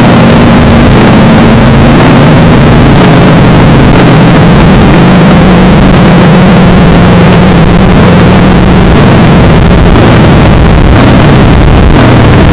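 Extremely loud, heavily clipped distortion: a dense wall of noise with a low, wavering drone underneath, typical of audio deliberately over-amplified as an 'earrape' edit.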